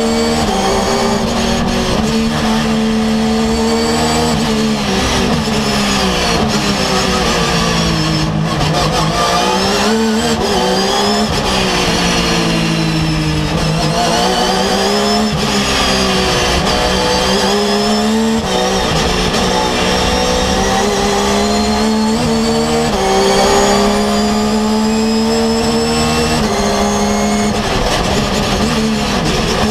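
Porsche 911 GT3 R race car's flat-six engine heard from inside the cockpit at racing speed. Its pitch climbs and steps down through gear changes, then falls away under braking, several times over.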